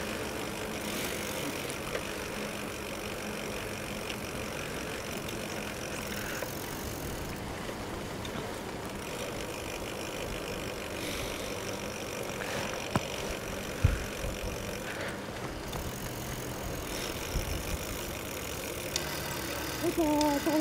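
Giant FastRoad Advanced 1 flat-bar road bike rolling along a paved path, a steady rolling and wind noise on the handlebar-mounted camera. A few light clicks and rattles, and a low thump about two-thirds of the way through.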